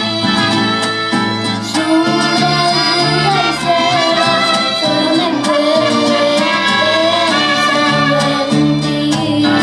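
A young girl singing with a mariachi band of violins, trumpets and guitars, playing steadily throughout.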